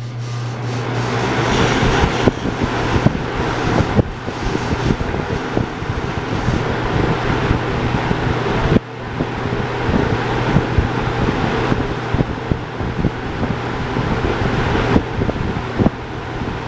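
Toastmaster model 4425 box fan running on high. The blades spin up to a steady rush of air over the first couple of seconds under a constant motor hum. Frequent small rattles come from the loose grill, whose screws need tightening.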